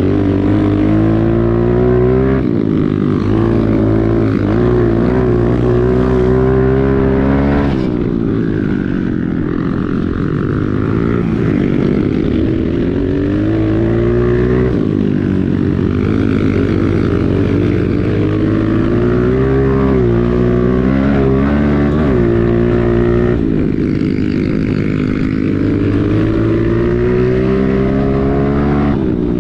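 Pit bike engine under load while being ridden, its pitch repeatedly climbing as the throttle is held and falling back, several times over.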